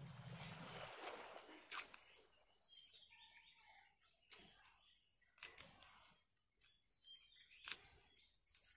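Faint clicks and crackles of eggshell being peeled off a hard-boiled egg, a few sharp ticks several seconds apart, with faint bird chirps in the background.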